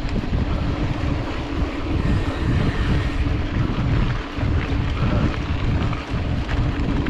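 Wind buffeting the microphone over the rumble and rattle of a mountain bike rolling fast over rough trail, with many small knocks and clatters from the bike.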